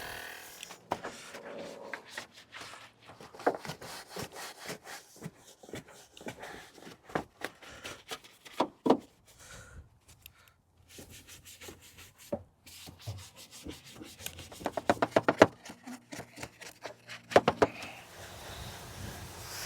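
Hand scrubbing during car detailing: short rubbing strokes on a surface with pauses, and quick back-and-forth runs of strokes about fifteen seconds in and again near the end.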